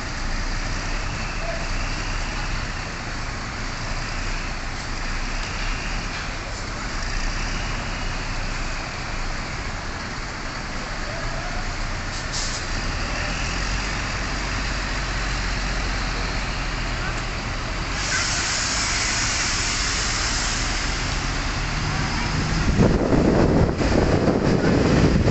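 Hino RN285 diesel bus engine running steadily. About 18 seconds in, a high hiss of compressed air lasts a few seconds, and near the end a much louder, rougher rush of noise sets in.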